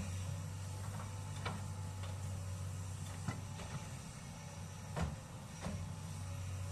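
SANY excavator's diesel engine running steadily, with a few sharp knocks and clanks scattered through, the loudest about five seconds in, as the machine works earth and rock.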